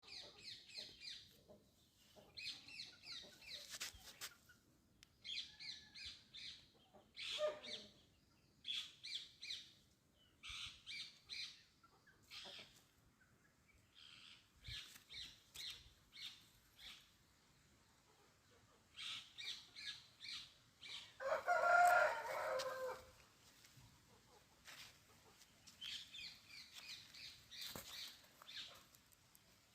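Birds chirping in quick runs of short, high notes, with one louder, lower call lasting about two seconds about two-thirds of the way through.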